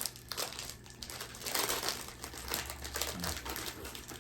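Snack wrapper crinkling and rustling in irregular bursts as a package of cookies is handled and opened.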